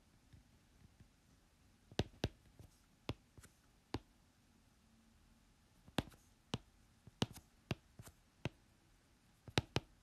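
Pen on paper during handwriting: a dozen or so irregular faint clicks and taps as the pen tip strikes and lifts from the page.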